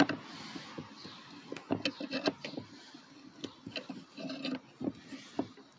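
Scattered light clicks and short scrapes of a C-clamp being worked against a rusty 1986 Pontiac Fiero front brake caliper, its screw pressing a 9 mm socket against a seized slide pin to drive the pin through.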